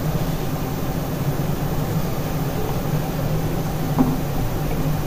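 Steady low hum with a rushing noise from the kitchen's background machinery, unchanging throughout. About four seconds in there is one light tap, as a momo is set down on the perforated steel steamer plate.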